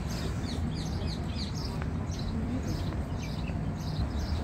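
Small birds chirping in a busy chorus, many short high chirps several a second, over a steady low rumble.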